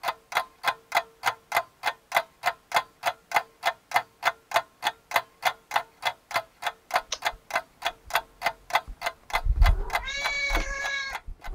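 A clock ticking steadily, about three ticks a second; near the end the ticking stops and a domestic cat gives one long meow over a low rumble.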